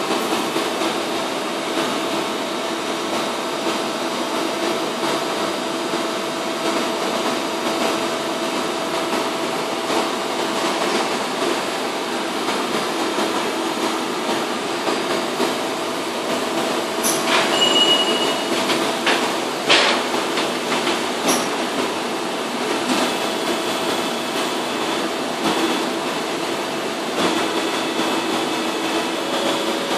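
Steady machinery hum of a hydraulic-drive HF (radio-frequency) conveyor-belt welder running, with a few sharp knocks and clatters a little past halfway as the belt and tooling are handled.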